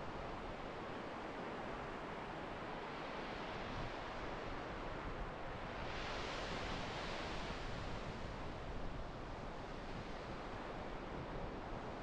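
Ocean surf on a sandy beach: a steady wash of breaking waves, swelling into a louder hiss about six seconds in as a wave breaks and runs up the sand.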